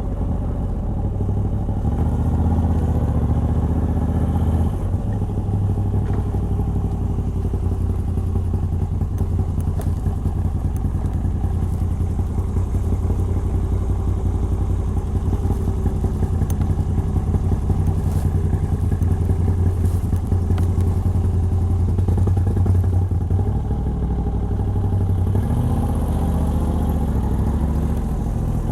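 Moto Guzzi V85TT's air-cooled transverse V-twin with the stock exhaust and a Mistral decat pipe, running steadily under way. The engine note shifts in pitch about five seconds in and again near the end.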